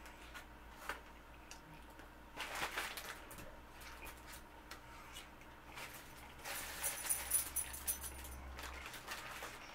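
Wet chewing and mouth clicks from eating a Whopper, with the burger's paper wrapper crinkling in two spells, about two and a half seconds in and again from about six and a half seconds.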